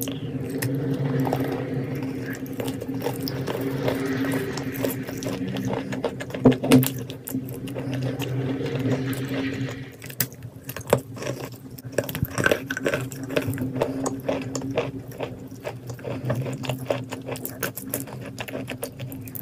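Wet chalk coated in clay paste being bitten and chewed close to the mouth: a dense run of crisp crunches and sticky, wet mouth sounds. Under it runs a steady low hum. The chewing gets softer about halfway through.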